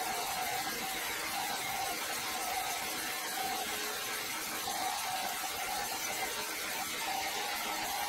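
Horizontal band sawmill blade cutting lengthwise through a large timber block: a steady sawing hiss with a constant whine running through it.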